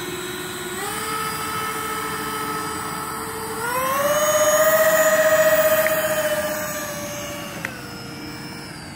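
Twin electric ducted fans of a large RC Airbus A330 model whining as it taxis. The pitch steps up about a second in, then climbs higher and loudest around the middle as the throttle is opened, and drops back near the end.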